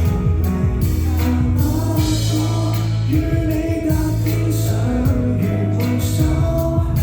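A song with a singer over sustained bass and a steady beat.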